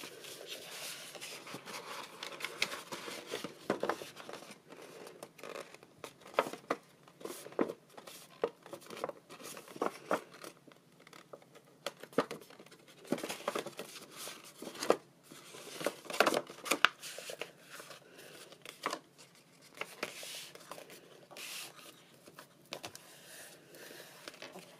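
Thick designer series paper being folded along score lines and burnished, with a bone folder in use near the end: irregular rustling, crackling and scraping as the paper bends and the creases are pressed flat, loudest about sixteen seconds in.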